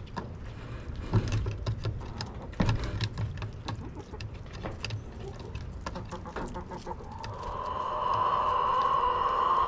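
A flock of white chickens clucking as they come out of the coop, with scratching and a few thumps in the first few seconds. Near the end one bird gives a long drawn-out call that swells and is the loudest sound.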